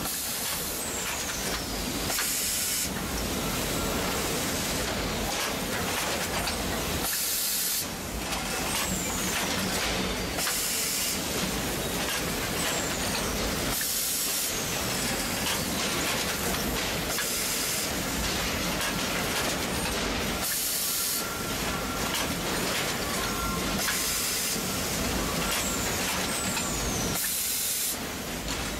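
VCP 991 net-welding bagging machine running steadily, with a pneumatic blast of air hissing out about every three and a half seconds and a short falling whistle between the blasts.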